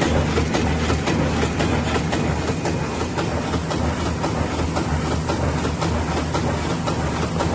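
Muller Martini 3210 book-sewing machine running, its mechanism clattering in a fast, even rhythm over a steady low hum.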